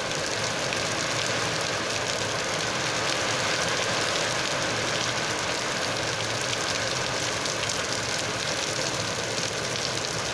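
Steady rain falling, an even hiss of many small drops with no change in strength.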